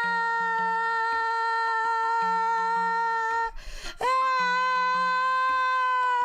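A woman's voice holding a long, steady high note. A short breath breaks it about three and a half seconds in, then a second long note follows at the same pitch.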